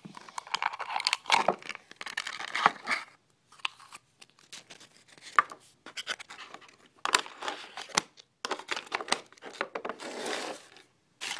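Toy packaging being opened by hand: crinkling, tearing and scratching with sharp clicks, in irregular bursts separated by short pauses.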